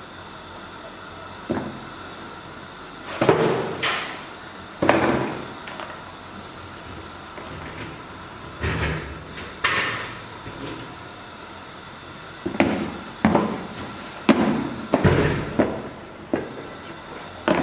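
Sneakers and an insole being handled and set down: a dozen or so irregular knocks and thuds, coming thicker in the last few seconds.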